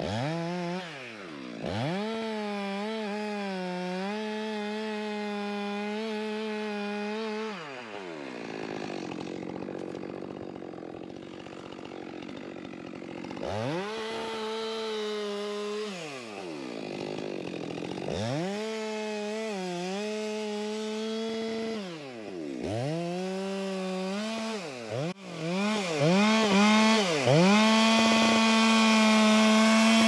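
Two-stroke gas chainsaw revving to full throttle in repeated bursts of a few seconds, cutting through the trunk of a standing tree to fell it. The engine drops back between cuts and runs loudest and steadiest near the end.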